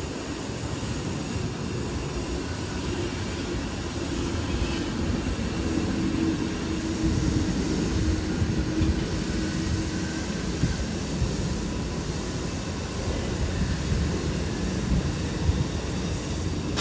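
Steady low rumble of distant vehicles, with a faint hum standing out for a few seconds in the middle.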